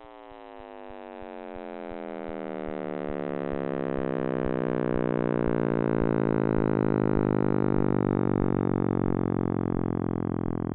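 Synthesized sonification presented as the sound of the Big Bang: a dense drone of many stacked tones that slowly falls in pitch while it swells in loudness.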